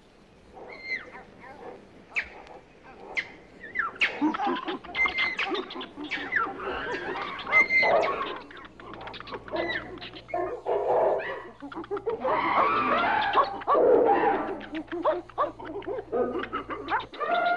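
Animal calls: many short chirps and clicks, sparse at first and much busier from about four seconds in.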